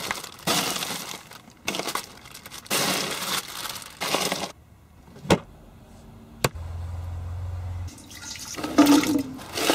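Hands rummaging in a cooler of ice, the ice shifting and a plastic bag crinkling in a run of bursts. Near the end, water poured from a bottle splashes into an empty stainless-steel stockpot; two sharp clicks and a short low hum come in between.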